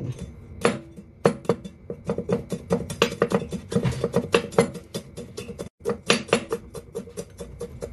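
Chinese cleaver chopping garlic cloves on a wooden chopping block, using the back of the blade to mince them. It makes quick, uneven knocks, several a second.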